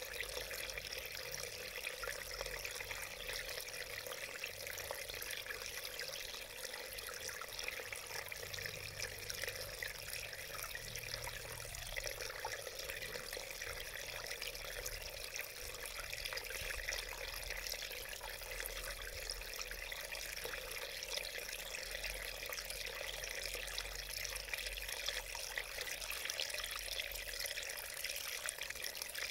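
A small, shallow mountain stream running and splashing over stones, a steady babbling with no breaks.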